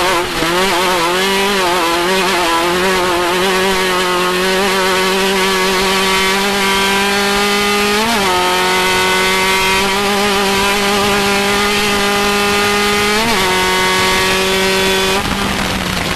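Off-road race vehicle's engine running hard at high, steady revs. The pitch wavers at first, then holds, with two brief upward flicks about halfway through and again near the end, as if the wheels unload over bumps.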